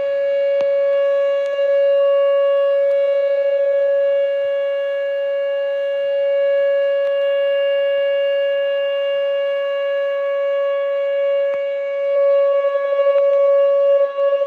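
Whelen WPS 2807 electronic outdoor warning siren sounding a loud, steady single-pitch tone with no rise or fall. Its level wavers briefly about three seconds in and again near the end.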